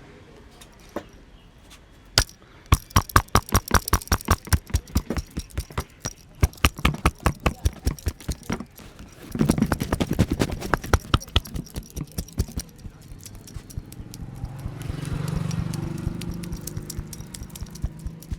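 Hands slapping and tapping in a fast rhythm during a percussive head massage, several sharp strikes a second, starting about two seconds in and running for about ten seconds.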